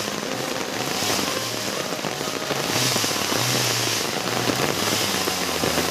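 Heavy rain crackling and hissing on the forest and the microphone, with a trail motorcycle's engine running at low revs underneath as it comes slowly down a muddy track.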